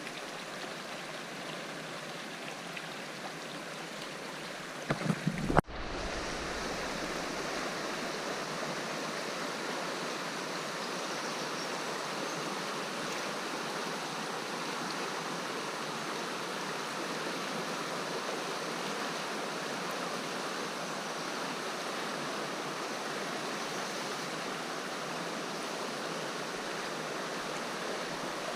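Steady rush of flowing river water. About five seconds in come a few low bumps and a sudden brief dropout, after which the rush continues slightly louder.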